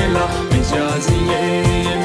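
Background music with a steady beat under a sustained melody.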